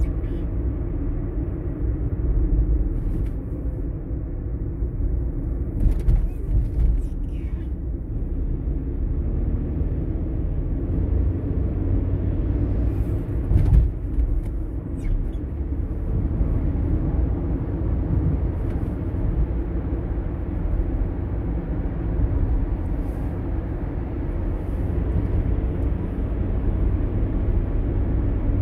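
Car driving at road speed: a steady low rumble of tyres and engine, with a few brief thumps about six seconds in and again near the middle.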